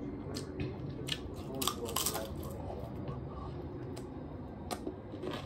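Mouth chewing and crunching Doritos tortilla chips close to the microphone, with scattered crisp crunches that bunch together about two seconds in.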